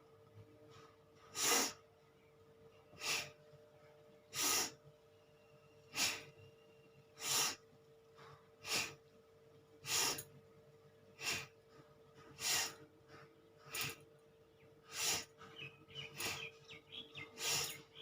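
Bhastrika pranayama (bellows breath): a person breathes forcefully in and out through the nose, each breath a short sharp rush of air, at an even moderate pace of about one every 1.3 seconds. A faint steady hum sits underneath.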